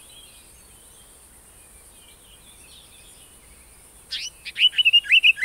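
Indian paradise flycatcher calling: after a few seconds of faint background, a rapid series of sharp rising notes starts about four seconds in.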